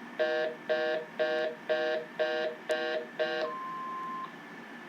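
Telephone line tone after the caller hangs up: a low multi-pitched tone pulsing on and off about twice a second, seven times, like a fast busy signal. It is followed by one steady higher beep from the AT&T TL96456 answering machine.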